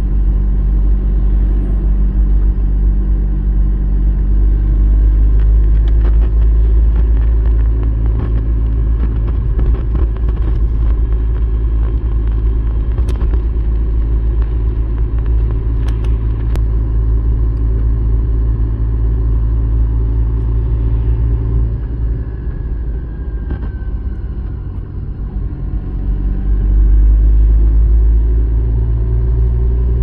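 Car driving on a road: steady low engine and road rumble, easing off a little after about twenty seconds, then louder again with the engine note rising near the end.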